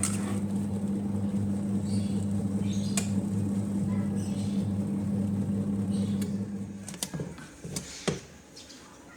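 Small electric motor of a mini portable washing machine running with a steady hum and some clicks and sloshing. It stops about seven seconds in, and a few knocks follow.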